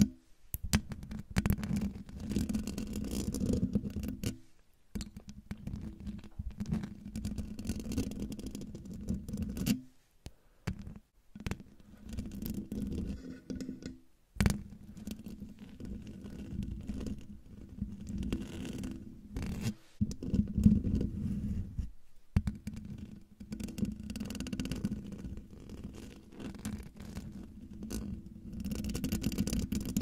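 Long fingernails scratching and rubbing across a microphone's metal mesh grille, close up: runs of rough scratching with a low rumble, broken by brief pauses every few seconds, and one sharp knock about halfway through.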